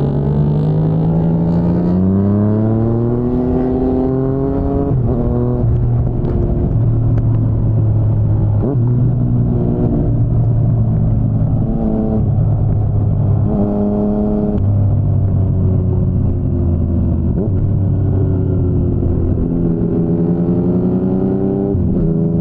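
2019 Yamaha MT-09's three-cylinder engine through an Akrapovic full-system exhaust, under way. The revs climb for about five seconds and fall sharply at an upshift. The engine then runs at steadier revs with short blips, and climbs again near the end before another drop.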